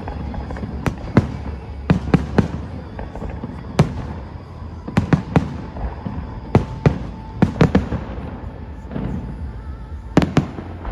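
Fireworks bursting overhead: a rapid, irregular series of sharp bangs, many coming in pairs or quick clusters, over a steady low rumble, with music playing faintly underneath.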